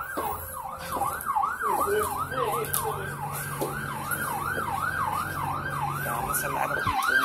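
Emergency vehicle siren in a fast yelp, its pitch sweeping up and down nearly three times a second without a break.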